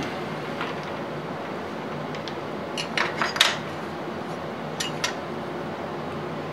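Light metallic clinks and taps of metal parts being handled on a lathe's cross slide: a quick cluster of about four about three seconds in, then two more about five seconds in, over a steady background hum.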